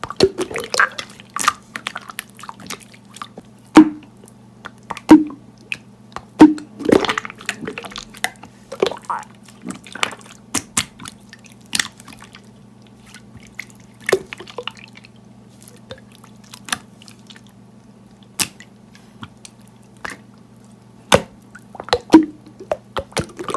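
Clear slime being squished, stretched and poked by hand, making irregular sticky pops and clicks, over a steady low hum.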